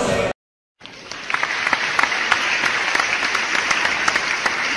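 Music stops abruptly, followed by a moment of silence. Then applause fades in, many hands clapping steadily.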